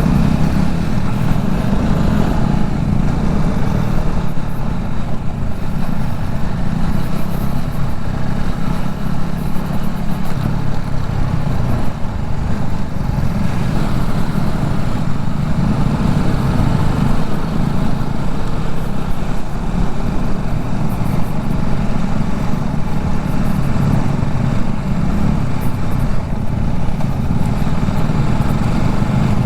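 TVS Apache motorcycle engine running steadily while being ridden, at a fairly even pace with no big revs or stops.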